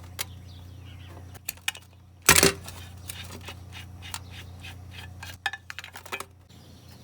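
Metal tools and small engine parts clinking and clanking as they are handled, with one loud clank about two seconds in, over a steady low hum.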